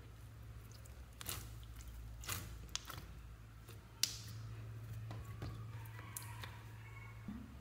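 Fingers pressing and poking clear slime packed with foam beads, giving scattered crackles and sharp pops, the loudest about four seconds in. A faint steady low hum runs underneath.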